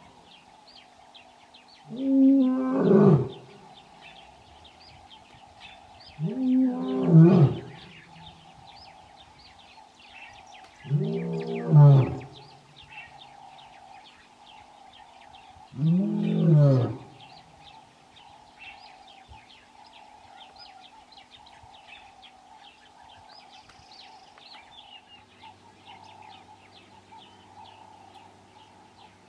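Male lion roaring to call his coalition partners: four long, deep roars about four to five seconds apart, each falling in pitch at its end. The roaring stops about two-thirds of the way through, and faint chirping goes on behind it.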